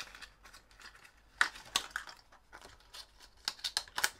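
Plastic lure packaging being handled, crinkling, with a few sharp clicks and a quick run of clicks near the end.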